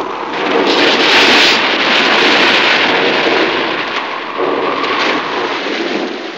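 A loud, continuous noise sound effect with no clear tone, a hissing upper band swelling briefly about a second in.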